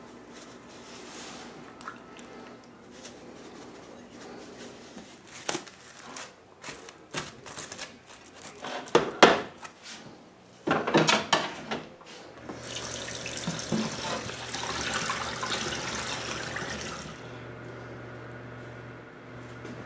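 Kitchen handling noises, with knocks and crinkly clatter as a foil-covered dish is put into a refrigerator, then a kitchen tap running steadily for about four and a half seconds, with a low hum under it.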